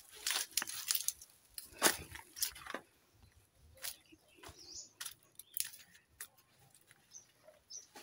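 Footsteps crunching and rustling through dry leaf litter and twigs, in short irregular crackles, the loudest about two seconds in.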